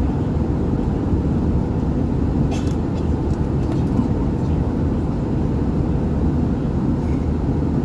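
Steady low roar of an Airbus A320 cabin in flight, engine and airflow noise. Faint passenger voices and a few light clicks sit under it, a few seconds in.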